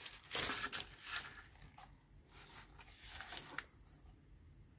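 Thin plastic protective bag rustling and crinkling as a digital photo frame is drawn out of it. The rustle is loudest in the first second, with softer rustles and a couple of light clicks later on.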